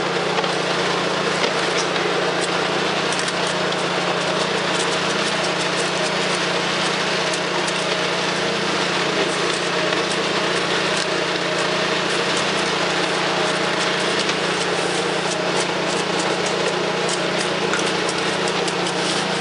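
A small engine running steadily, with shovels scraping and clinking in wet concrete.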